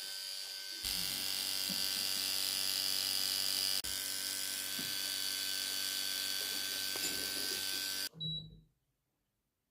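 A small electric motor running with a steady high buzz. It gets louder about a second in and cuts off abruptly near the end, leaving near silence.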